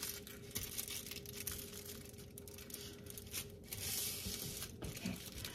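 Aluminium foil crinkling faintly, in scattered small crackles, as the ends of a foil-wrapped roll are twisted shut.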